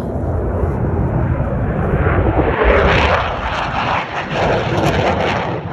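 Blue Angels F/A-18 Super Hornet fighter jet making a low pass, the rushing roar of its twin jet engines building to its loudest about three seconds in and surging as it goes by.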